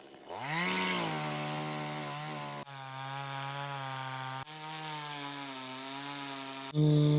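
Two-stroke chainsaw revving up about half a second in, then running at high speed with a steady, slightly wavering pitch. The sound breaks off and jumps abruptly three times.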